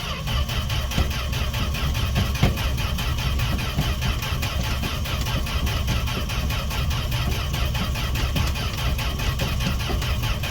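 Starter cranking the engine of a 1968 Fargo D100 pickup in a steady, even rhythm without it catching. The engine has sat unused for seven months, and the owner suspects the fuel pump.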